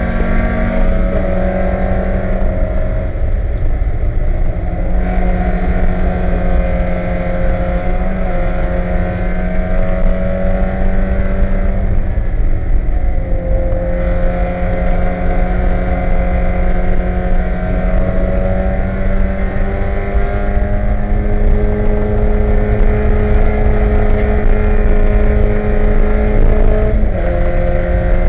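A 1995 Mazda Miata Spec Miata race car's four-cylinder engine running hard under racing load, heard from inside the cockpit. The pitch holds mostly steady and then jumps or drops suddenly several times, with a clear drop near the end as it shifts up.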